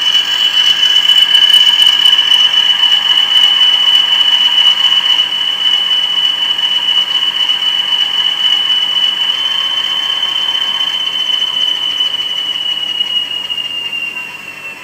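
Bachmann Class 20 model locomotive's DCC sound decoder playing the diesel engine sound through its small on-board speaker: a high, steady whine over a mechanical buzz. The whine eases off and falls in pitch over the last few seconds.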